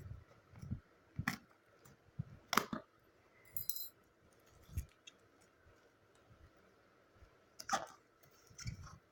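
Small scissors working at a taped cardboard box: irregular clicks and snips, soft knocks of the box being handled, and a short scratchy rasp a few seconds in.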